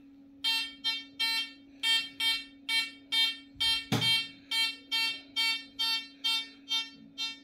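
Amiral XP-4 discriminating metal detector giving its target tone as a coin is swung past the search coil: a quick string of short, bright beeps, about three a second, over a steady low hum. One knock sounds about four seconds in.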